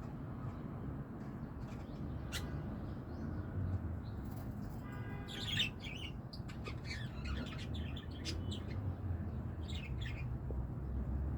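Lovebirds chirping in short, high calls, sparse at first and busier from about halfway through, over a steady low hum.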